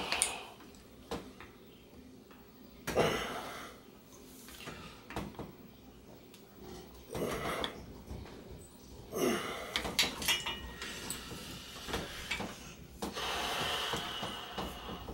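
Metal tool clinks and scrapes as an extra-long hex bit on an extension is worked against a very tight bolt at the bottom of a RockShox Indy C suspension fork leg, in several separate efforts. There is a quick run of sharp clicks about two-thirds of the way in and a longer scraping stretch near the end. The bolt does not break loose.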